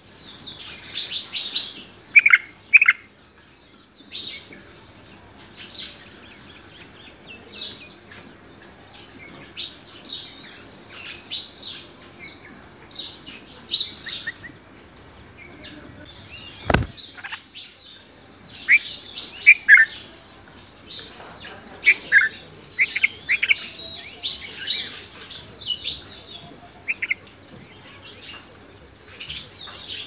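Red-vented bulbuls chirping at the nest: short, high chirps in quick clusters, busiest near the start and again past the middle. A single sharp click about 17 seconds in.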